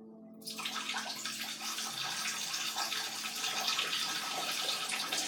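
Water rushing into a Samsung washing machine as it starts to fill. It comes on suddenly about half a second in and runs on steadily.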